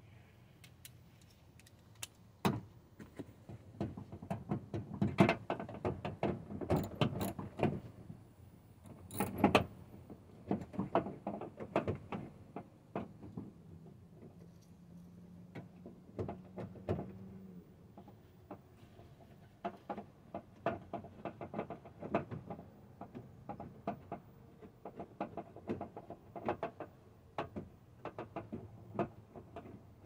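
Irregular clicks, knocks and light rattles of parts and tools being handled inside a 2009 Chevy Silverado's open door during a door handle replacement. They come in two busy spells with a quieter stretch in the middle.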